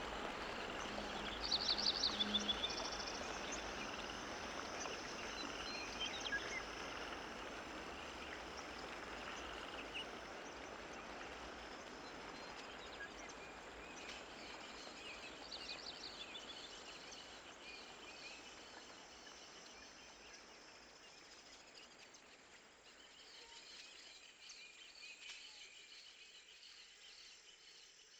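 Outdoor field ambience: a broad hiss that slowly fades, with quick bird chirps about two seconds in and again around the middle, and faint insect trilling toward the end.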